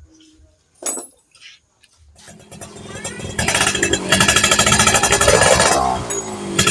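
Yamaha F1ZR's single-cylinder two-stroke engine, quiet at first, rising about two seconds in and revved hard with a rapid buzzing rattle, easing off briefly near the end and revving up again. The revving is a test of the carburetor setting for the bike's bogging and popping.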